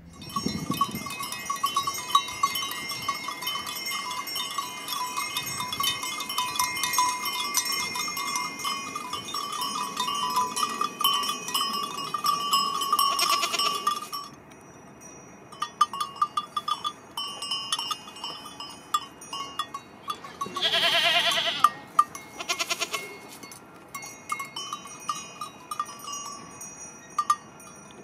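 Livestock bells clinking and ringing steadily among grazing sheep and goats for the first half. Later a goat bleats loudly once, then gives a shorter bleat just after, over scattered bell clinks.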